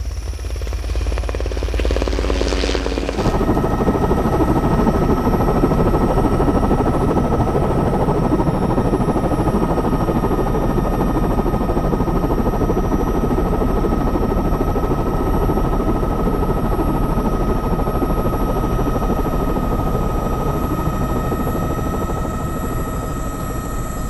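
Steady in-flight noise of a light aircraft heard from inside the cockpit: a dense engine and wind rumble with a constant whine over it. It comes in suddenly about three seconds in.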